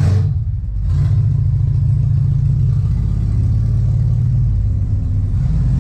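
The four-cylinder 1275cc A-series engine of a freshly rebuilt 1990 Classic Mini running steadily, with a brief louder burst right at the start.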